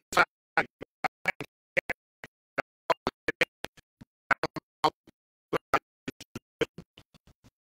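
A quick, irregular run of short clicks and taps, about four a second, with silence between them.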